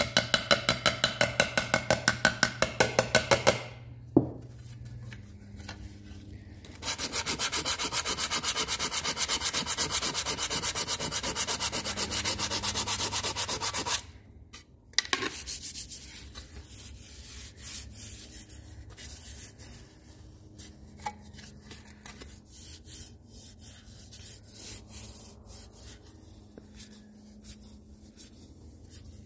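Quick, even taps of a small hammer on an aluminum trim molding, each with a short metallic ring, for the first few seconds as dents are worked out. Then sandpaper rubbed by hand along the aluminum: brisk, steady sanding strokes for several seconds, and lighter, uneven scrubbing after that.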